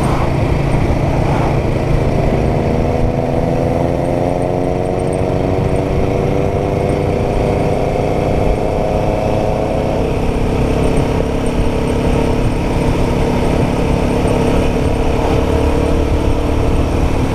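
Royal Enfield Guerrilla 450's single-cylinder engine running under way, with constant low wind rumble. Its note eases slightly lower, then settles on a lower steady note about ten seconds in.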